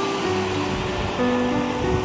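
Background music: a melody of long held notes that change every half second or so, over a steady rush of water.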